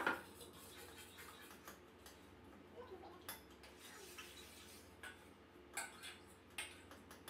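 Faint, scattered clinks and scrapes of a spoon in a glass mixing bowl as graham-cracker crust mixture is stirred, with one sharper clink at the very start.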